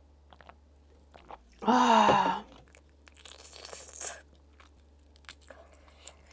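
Mukbang eating sounds: a loud satisfied 'aah' after a swig from a can, then slurping and gnawing on a spicy chicken foot, with small wet clicks and crunches of chewing.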